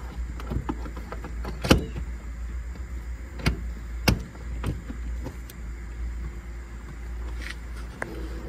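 Sharp clicks and taps of hands working a car's headliner trim and tucking wiring behind it, the loudest near two seconds in, over a steady low hum.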